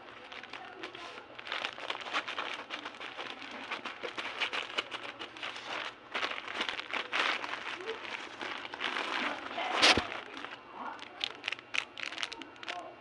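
Packaging crinkling as it is handled and opened, in many quick irregular crackles, with one louder sharp crackle about ten seconds in.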